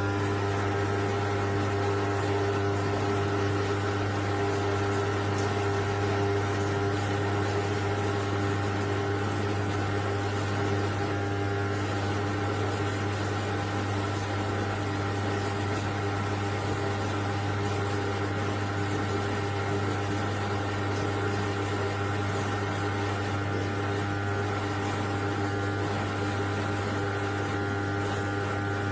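Dishwasher running: a steady low pump-motor hum with several constant tones over a faint watery hiss, unchanging throughout.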